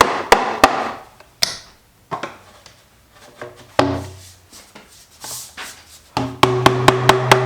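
Background music with sharp percussive hits, a steady low sustained note coming in about six seconds in.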